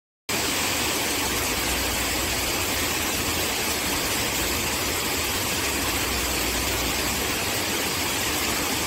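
Kakolat waterfall: a steady, even rush of falling water, cutting in suddenly just after the start.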